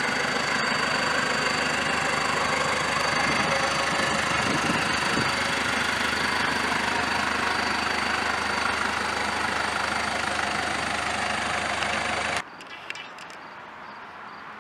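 2007 Mitsubishi Fuso utility truck's diesel engine idling steadily, with a thin, high, steady whine over the engine's sound. About twelve seconds in the sound cuts off abruptly, leaving a much quieter background.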